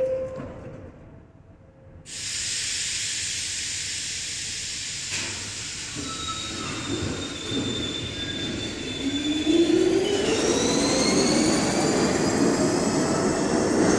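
R62 subway train on the 3 line pulling out of the station. A loud hiss of air starts suddenly about two seconds in. Then the motor whine rises in pitch as the train gathers speed, over rumbling wheel and track noise.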